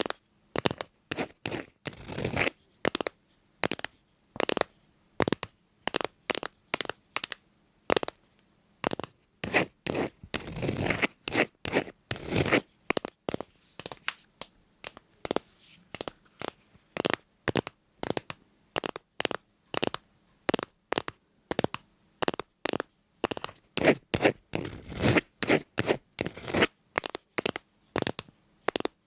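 A run of short, crisp scraping strokes, about two a second, with a few longer drawn-out scrapes in between.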